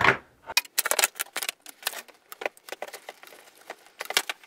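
Quick, irregular clicking and clatter of a DeWalt trigger bar clamp being fitted and ratcheted tight to press a ball bearing onto an induction motor's rotor shaft through a length of pipe, with a couple of louder clicks near the end.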